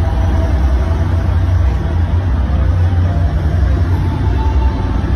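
Loud, steady low helicopter rumble played over a large arena's sound system as an effect for a stage helicopter prop.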